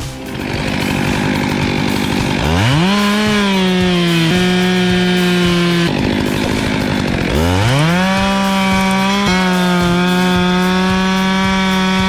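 Two-stroke chainsaw revving up to full throttle twice, about two and a half seconds in and again about seven seconds in, each time holding a steady high pitch while it cuts, with a brief dip in pitch near the end.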